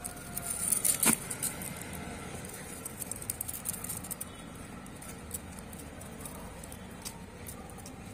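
Light scratching and clicking from a hamster in a cardboard tube as the tube is handled, with sharp clicks clustered about a second in, the loudest of them, and again around three to four seconds in.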